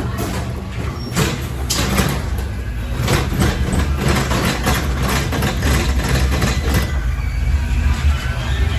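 Dark-ride car running along its track: a steady low rumble with repeated clattering knocks that die away about seven seconds in.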